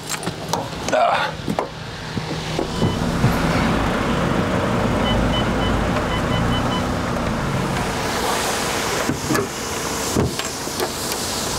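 A vehicle engine running steadily, its noise building up about two seconds in, with a few short high-pitched beeps in the middle.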